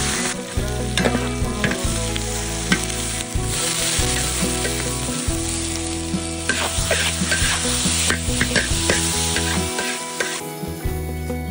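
Pork and chili peppers sizzling as they are stir-fried in a hot pan, with the spatula's strokes clicking against the pan. Near the end the sizzle drops away.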